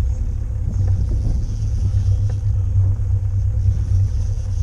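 Steady low rumble aboard a pontoon boat under way while trolling, with no clear engine note above it.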